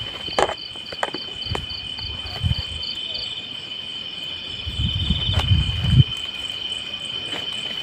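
Night insects chirring: a steady high-pitched drone, with a second insect chirping in regular pulses about three or four times a second for the first few seconds. A few sharp clicks early on and a cluster of low thumps and rustling around five to six seconds in.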